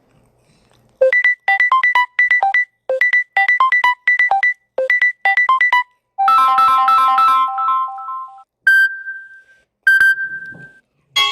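Samsung Galaxy A20 ringtones and alert tones played through the phone's speaker. A quick melody of short electronic notes repeats three times, then a chord rings and fades out over about two seconds, followed by two single chime tones about a second apart.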